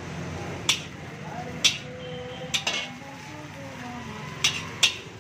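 Long steel ladle clanking and scraping against a large iron wok as fried rice is stirred and scooped, with about six sharp, unevenly spaced clanks.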